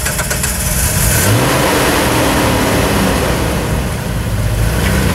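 Jeep Wrangler TJ Rubicon's 4.0-litre straight-six engine revving up under load about a second in, held for a few seconds while the Jeep crawls over the obstacles, then easing back off near the end.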